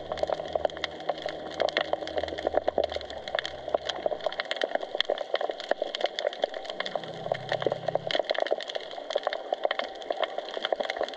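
Underwater crackling: a dense, continuous stream of sharp clicks, typical of snapping shrimp on the seabed. A low hum runs under it for the first few seconds and returns briefly a little past the middle.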